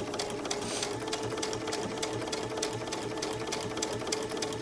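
Electric sewing machine stitching steadily at a fast, even pace through cork fabric and zipper tape: a rapid regular ticking of the needle over a constant motor hum.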